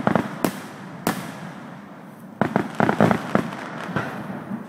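Aerial fireworks shells bursting: two sharp bangs about half a second apart in the first second, then a rapid string of pops a little over two seconds in.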